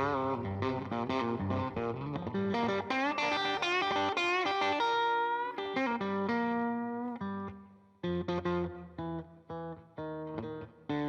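Band music led by electric guitar playing the closing bars of a song: a run of single notes, a brief break about eight seconds in, then short chord stabs to finish.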